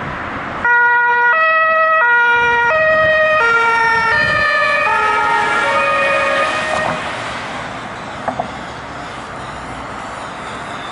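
German police two-tone siren (Martinshorn) on a VW Passat patrol car, alternating between a low and a high note about every 0.7 s. It starts abruptly about a second in, then drops in pitch and fades away over several seconds as the car drives off, leaving steady traffic noise.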